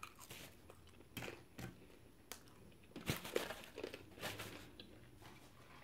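Faint rustling and crinkling of a paper fast-food wrapper being handled, in short scattered scrunches with a few light ticks, busiest about three seconds in.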